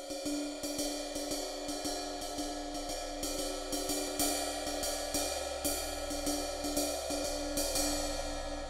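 A 1960s Paiste Dixie 20-inch medium thin ride/crash cymbal struck with hickory drumsticks in a steady ride pattern of about three strokes a second, with some strokes louder than others, over its building wash. Near the end the strokes stop and the cymbal rings on.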